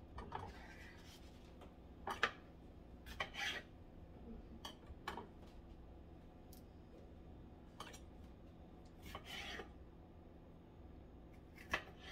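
Knife cutting and scraping vegetables on a cutting board: scattered single strokes, with a couple of longer scrapes, the sharpest about two seconds in and near the end.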